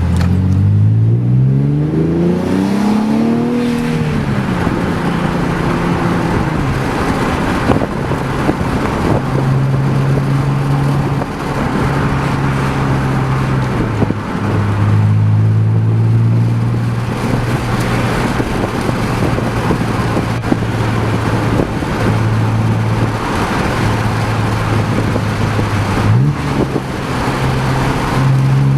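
Nissan 370Z's 3.7-litre V6 through an AAM Competition 2.5-inch true dual cat-back exhaust, revving hard under acceleration with a steeply rising pitch for the first few seconds, then dropping after a shift. It then settles into steady cruising, with a couple of steps in pitch at later gear changes, one with a quick upward blip of revs.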